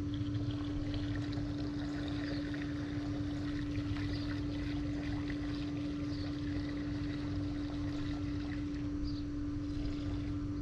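Diesel fuel pouring through a funnel into a tractor's fuel tank, gurgling and splashing, over a steady low hum with one constant tone.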